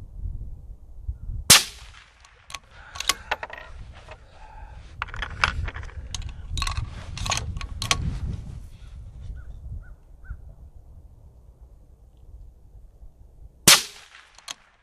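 Two shots from a suppressed 6mm ARC rifle, about twelve seconds apart, with metallic clicks and clatter of the rifle's action being cycled between them.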